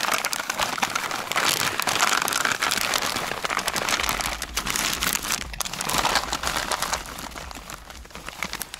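Plastic bag of dry dog food crinkling and rustling as kibble is shaken out of it into a bowl, a dense, irregular rustle with many small clicks.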